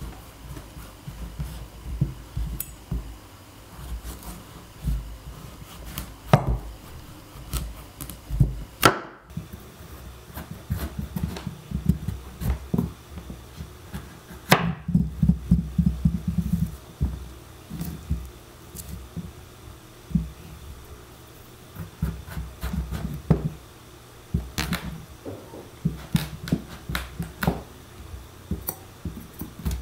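A knife being forced through a raw pumpkin's hard rind and flesh on a wooden table: crunching and cracking as the blade works down, with scattered sharp knocks of the knife and pumpkin against the tabletop.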